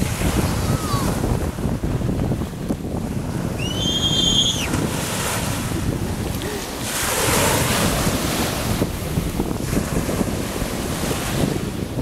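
Small surf waves breaking and washing up a sandy beach, with wind rumbling on the microphone. A louder wave breaks about seven seconds in, and a short high cry rises and falls about four seconds in.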